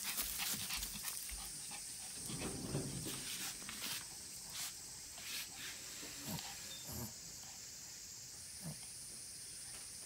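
Black Pomeranian making a few short, low, falling vocal sounds, with scattered small clicks and a steady high hiss behind.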